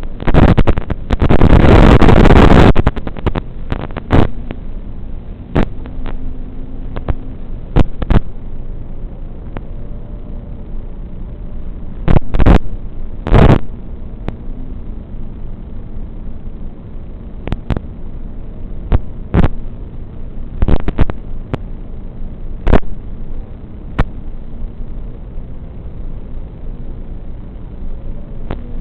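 FPV drone's onboard camera audio: a steady rush of motor and propeller noise with faint shifting tones, broken by loud crackling bursts of wind buffeting and distortion. The longest burst is near the start; shorter ones recur every few seconds.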